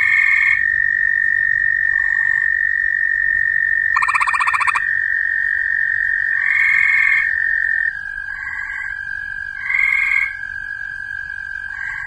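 Gray treefrog calling, its throat sac swelling. It gives a loud, fast trill about four seconds in, and softer trills come in between, over a steady high-pitched ringing tone.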